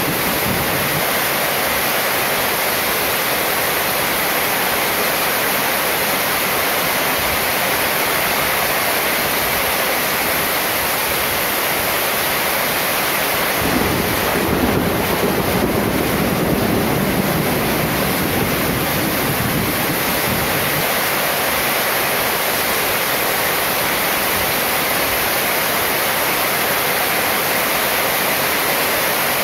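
Heavy rain pouring steadily onto a metal roof and running off its edge. About halfway through, a low rumble swells and fades over several seconds.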